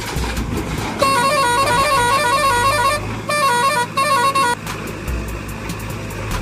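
A bright electronic melody of quick stepped beeps, like a musical vehicle horn, plays for about two seconds starting a second in, then twice more in short bursts. A steady low engine drone runs beneath it.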